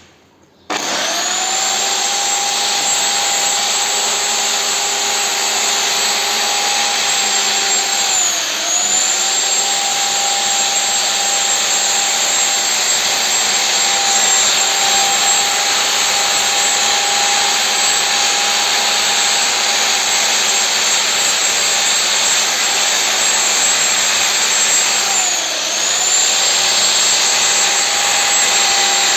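High-speed electric power tool motor running continuously with a steady whine over a loud hiss. It starts about a second in, and its pitch dips and recovers twice, about a third of the way in and near the end, as the motor briefly slows under load.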